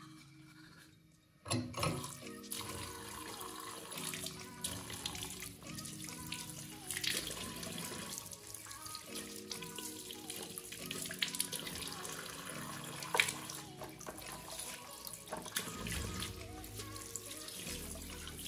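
Tap water running from a chrome faucet into a ceramic washbasin, starting suddenly about a second and a half in, splashing as a toothbrush and then hands are rinsed under the stream.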